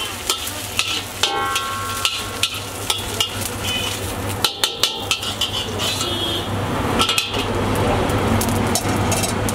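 Metal spatula scraping and clanking against a hot iron wok in quick, irregular strikes, one about a second in ringing briefly, with oil sizzling lightly in the pan. A steady low hum runs underneath.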